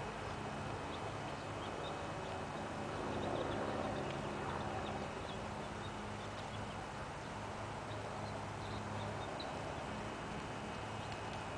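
A horse's hoofbeats on sand arena footing as it trots, over a steady low hum.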